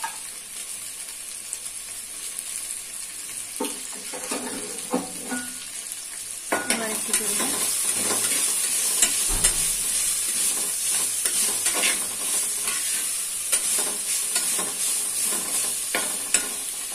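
Sliced onions, green chillies and curry leaves sizzling in coconut oil in an earthenware clay pot as they begin to sauté. A metal spoon scrapes and clicks against the pot as they are stirred. The sizzle grows louder about six and a half seconds in.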